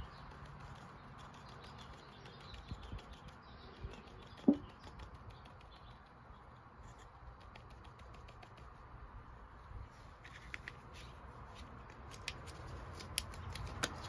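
Faint crinkling and light tapping of a small foil sachet as pearl pigment powder is shaken out of it, with scattered soft clicks and one short sharp sound about four and a half seconds in.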